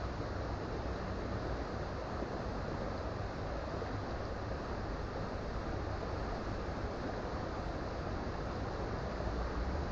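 Creek water running steadily, an even rushing noise with a low rumble underneath.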